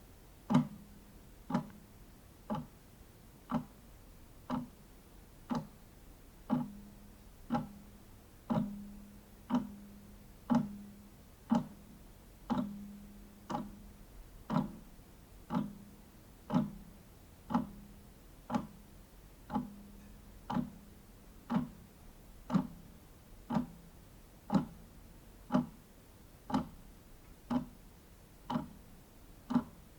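Wall clock ticking steadily, about one tick a second, each tick a sharp click with a short low ring after it.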